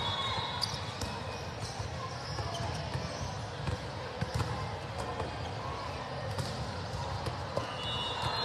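Volleyballs being struck and bouncing in a large hall: scattered sharp slaps of hands on the ball over a steady murmur of voices from players and spectators.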